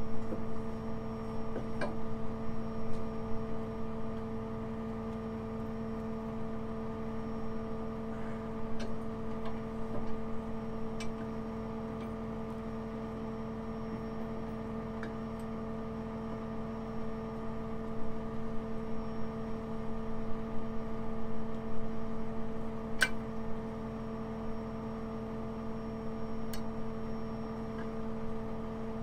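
Truck-mounted crane's engine and hydraulics running steadily, a constant hum. A few faint sharp clicks sound now and then, the clearest about two-thirds of the way through.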